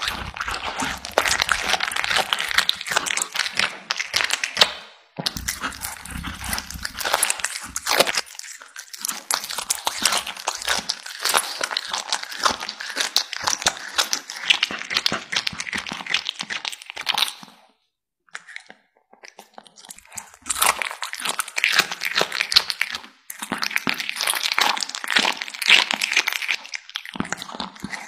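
A cat eating raw meat close to the microphone: rapid wet chewing and biting clicks in long runs, broken by a few short pauses and a longer lull about two-thirds of the way through.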